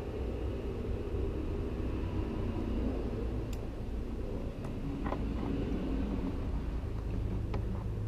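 A steady low background rumble, with a few faint, small clicks of the metal valve collets and spring retainer being handled on the cylinder head.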